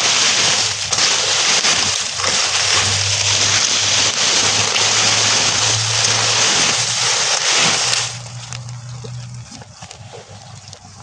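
Burning straw crackling and hissing: a dense, loud rush of tiny pops that drops off sharply to a much quieter, sparser crackle about eight seconds in.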